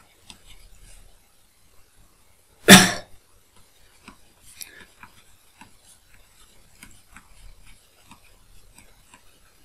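One short, loud cough about three seconds in, set against faint scratching and light ticks of a pen writing on a tablet.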